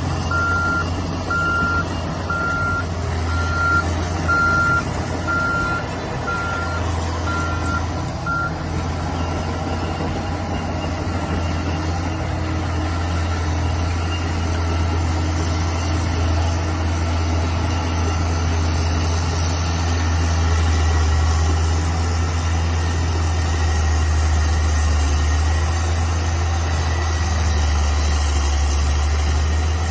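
Bulldozer's diesel engine running under load, with its backup alarm beeping about once every 0.8 seconds until it stops about eight seconds in, as the machine finishes reversing and then keeps working forward.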